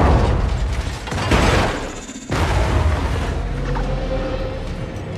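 Film explosion effects as cars are blown up and thrown into the air: a blast at the start, another surge about a second and a half in, and a third sudden blast a little later that slowly dies away.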